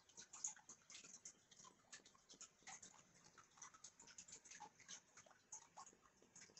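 Faint, irregular crackling and ticking of a pot of water bubbling on a hot stove.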